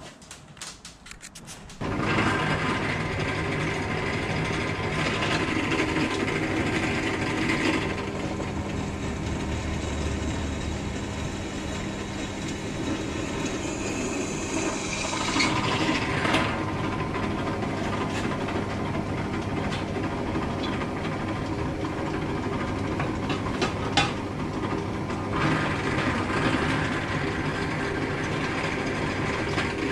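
Benchtop drill press running, its motor humming steadily while the bit cuts into sheet metal, the cutting noise shifting as it bites. It starts suddenly about two seconds in, after a few light clicks.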